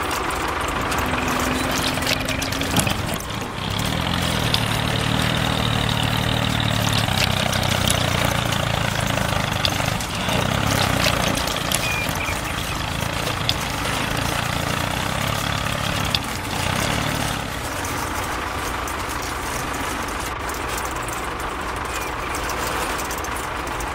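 Vehicle engine running steadily at idle, with a deeper, stronger hum from about four seconds in until about seventeen seconds in.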